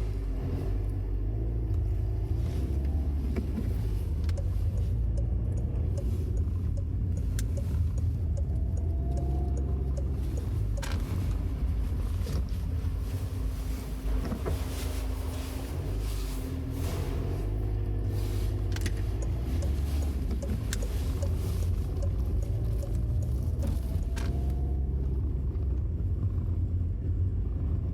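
Peugeot 308's 1.6 HDi diesel engine and tyres on a snowy road, heard from inside the cabin while driving: a steady low rumble with a few faint clicks.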